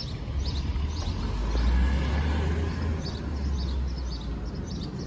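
A motor vehicle passes close by on the street, its low engine rumble and tyre noise swelling to a peak about two seconds in, then easing off. Small birds chirp repeatedly throughout.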